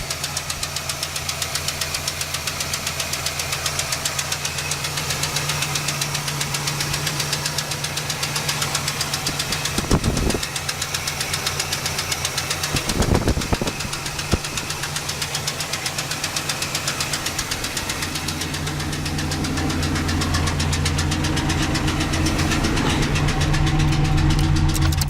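Oldsmobile 350 Rocket V8 idling with a rapid, steady ticking from the top of the engine, which the owner takes for a rocker arm that is either loose or too tight. There are two brief louder bumps about ten and thirteen seconds in, and the engine runs a little louder over the last several seconds.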